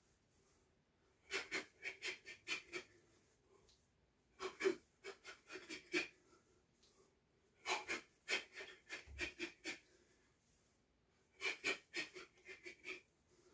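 Sharp, hissing breaths forced out through the mouth, one with each punch of a shadowboxing combination, in four quick flurries of six to eight at about five a second.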